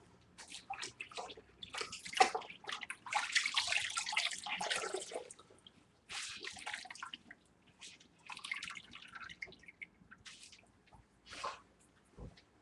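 Rustling and handling noises close to the microphone in irregular bursts, the longest and loudest from about two to five seconds in.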